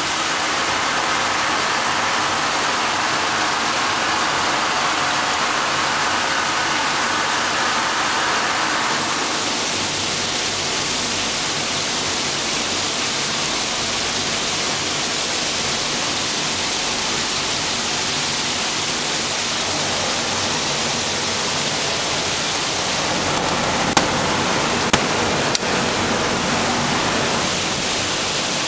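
Ice-making plant machinery running: a steady, even rushing noise, with a few sharp clicks near the end.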